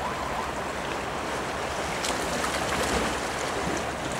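Steady wash of wind and water lapping at the jetty, with no single sound standing out.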